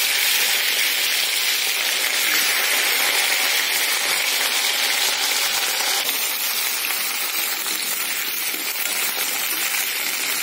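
Cauliflower florets sizzling as they fry in hot oil in a steel kadai, just after going into the pan. A steady, dense sizzle that eases slightly after about six seconds.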